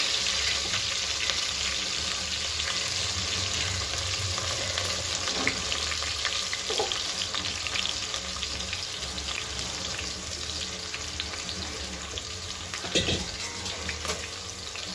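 Steady crackling hiss of food cooking on a gas stove, slowly fading, with a single knock near the end.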